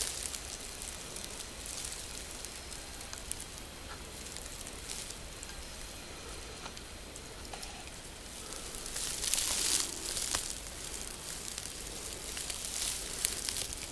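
Steady outdoor hiss with fine crackling rustle, swelling twice into louder rustling bursts in the second half.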